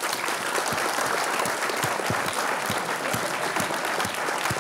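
Audience applauding: dense, steady hand-clapping from a large crowd.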